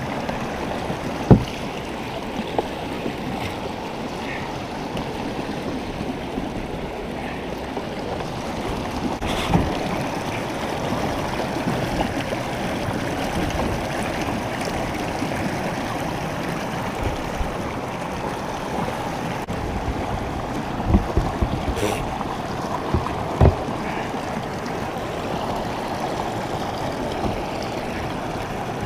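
Creek water rushing steadily, with a few sharp knocks scattered through it: one about a second in, another near the middle, and a cluster near the end.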